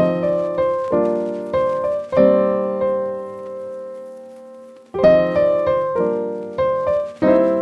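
Background music: piano playing a slow phrase of single notes and chords that ring and fade, one chord left to die away before the melody starts again about five seconds in.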